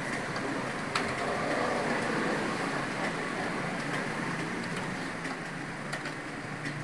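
Steady rushing background noise, with scattered light clicks of computer keyboard keys being typed on.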